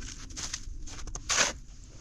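Footsteps crunching through snow: a few irregular steps, the loudest shortly after a second in.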